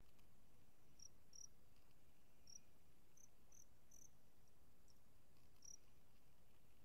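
Faint insects chirping: short, high-pitched chirps come singly and in small clusters at uneven gaps over a low background hiss.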